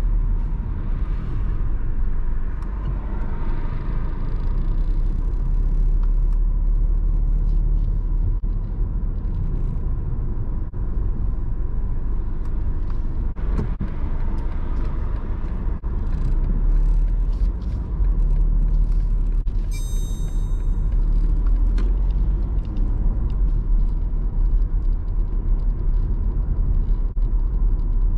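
Car driving on city streets, heard inside the cabin: a steady low rumble of engine and tyres. About two-thirds of the way through, a brief high ringing tone sounds for around a second.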